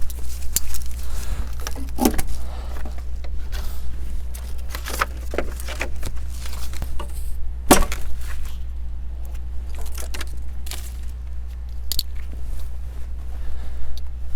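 Scattered knocks, clanks and scrapes as a heavy log splitter is worked off its wooden shipping pallet, with one sharp knock about eight seconds in, over a steady low hum.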